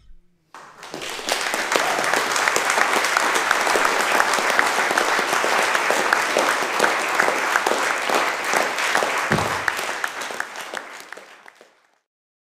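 Audience applauding, building quickly about half a second in and fading away near the end.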